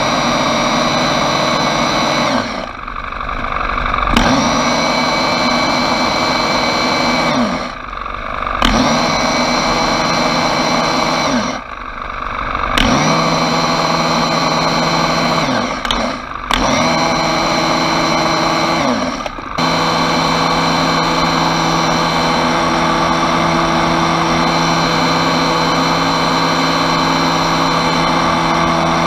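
Small petrol engine of a pole-mounted power brush running at high revs as it scrubs block paving. The throttle is eased off and opened up again five times over the first twenty seconds, then held steady.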